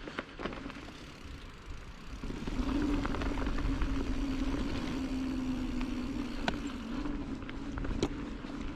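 Giant Trance mountain bike being ridden along a dirt singletrack: rolling tyre and bike noise with scattered knocks and rattles, and a steady hum that sets in about two seconds in as the speed and loudness build.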